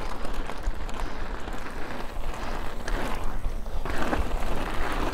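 Mountain bike riding fast downhill over a rocky trail: tyres rolling and crunching on rock and gravel, with small rattles and knocks from the bike.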